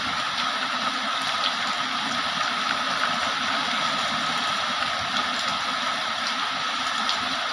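Heavy rain falling steadily: a dense, even hiss with faint scattered drop ticks and no thunder.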